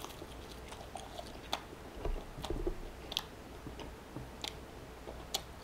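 Close-up mouth sounds of a man chewing a bite of grilled cheese sandwich dipped in tomato sauce, quiet, with a few faint, short clicks scattered through.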